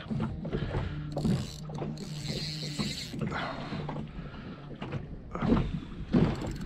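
Fishing reel being worked against a fighting carp, its gears whirring steadily for a couple of seconds, with a few short knocks afterwards.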